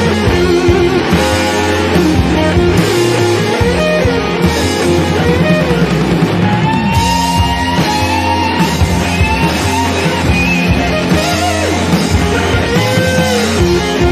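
Rock music with guitar as the lead instrument, played steadily at a loud level, with bending guitar notes.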